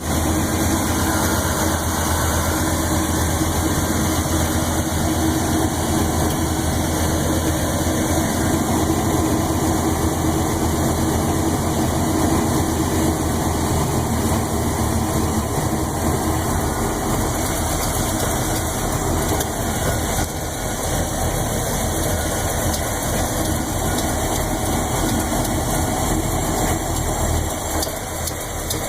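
Chevrolet 400 small-block V8 with a Lunati Voodoo hydraulic camshaft idling, with a lifter tick from the even-numbered cylinder bank. The owner asks whether it is a bad lifter, since the valve lash checked correct. The engine's low note shifts lower about halfway through.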